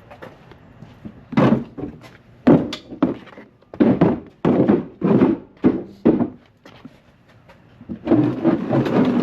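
A run of about nine dull thunks, irregularly spaced over about five seconds, from hard parts knocking during work on a car's suspension.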